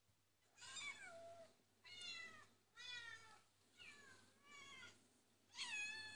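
Cats meowing in a YouTube video played through a laptop speaker: six separate meows about a second apart, each falling in pitch.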